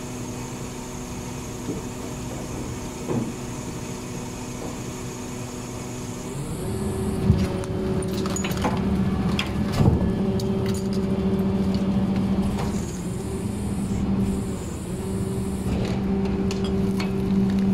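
A garbage truck's rear-loader compactor runs. A steady mechanical hum becomes a louder hydraulic drone about six seconds in as the packer blade comes down into the hopper. Scattered cracks and crunches follow as the load is pressed.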